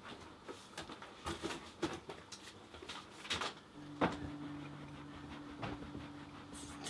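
Things being shifted and handled while someone rummages through a closet: scattered soft knocks, clicks and rustles. About four seconds in, a steady low hum comes in and holds.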